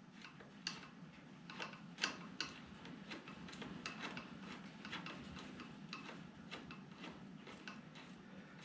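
Screwdriver turning the screw of a hose clamp on a Mahindra eMax 20S tractor's lower radiator hose to loosen it: faint, uneven clicks, about two a second, over a low hum.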